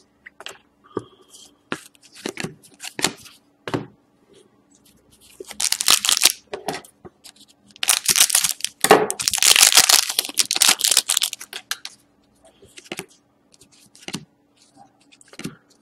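Scissors cutting open the foil wrapper of an SP Game Used hockey card pack, with crinkling of the wrapper, loudest from about eight to eleven seconds in. Before and after it, cards are handled, with short taps and clicks.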